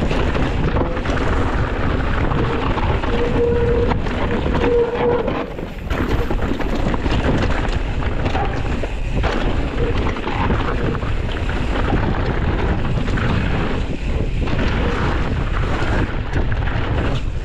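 Wind buffeting the camera microphone over the rumble and clatter of mountain bike tyres rolling fast down a rough dirt trail.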